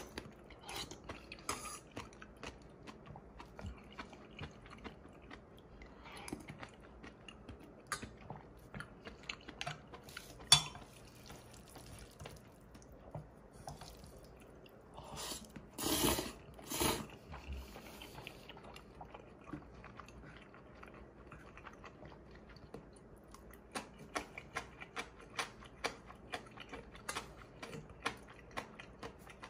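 Close-up eating sounds: noodles and cold soup being chewed, with chopsticks and a spoon clicking against a stainless steel pot and bowl. A sharp clink comes about ten seconds in, and two loud slurps come about halfway through.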